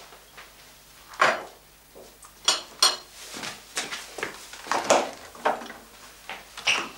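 Crockery clinking and knocking as dishes and a cup are handled, a series of separate short clatters, with cupboard-door or drawer knocks among them.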